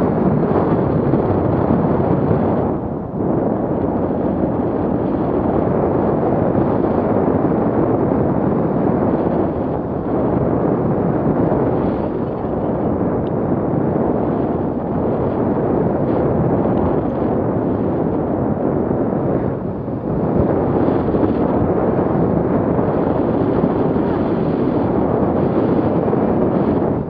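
Wind from a paraglider's flight buffeting a handheld camera's microphone: a loud, steady rushing noise, easing for a moment about three seconds in and again around twenty seconds.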